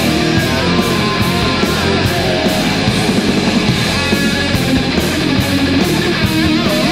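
Heavy metal band recording playing: electric guitar over drums, with a steady beat of cymbal hits.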